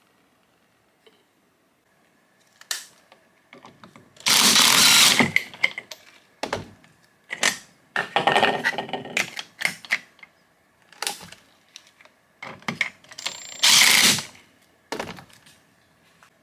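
Cordless impact driver with a homemade pin-wrench socket running in short bursts to spin an angle grinder's flange nut, with clicks and clatter of the nut, flange and cutting disc being handled between the bursts.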